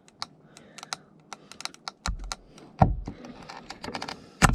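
Flathead screwdriver prying at a plastic door trim piece: a run of small sharp plastic clicks and taps, with three louder knocks about two, three and four and a half seconds in.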